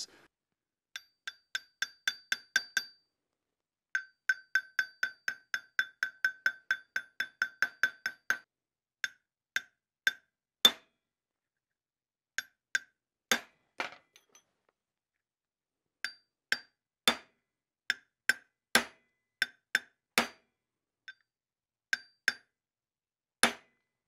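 Hammer blows on a metal tube driver, seating the pinion ball bearing in a Porsche 911 steering rack housing. First comes a run of quick light taps, about four a second. After that come slower single blows a second or so apart, some of them harder. Each strike gives a short, high metallic ring.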